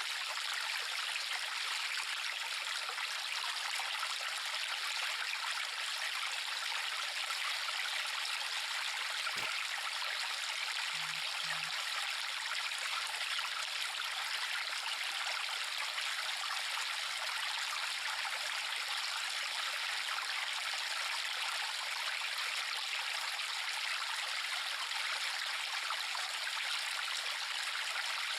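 Steady rushing of a river stream, water running and trickling over stones.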